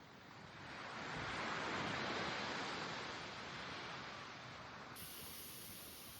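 Sea waves washing onto a sandy beach: a rushing surge that swells, peaks about two seconds in, then slowly recedes.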